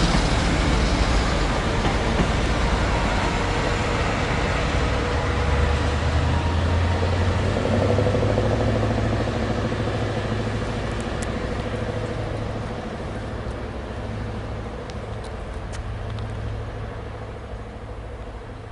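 FS E.652 electric locomotive running with a loud, even rushing noise that slowly fades. A low steady hum sets in about five seconds in.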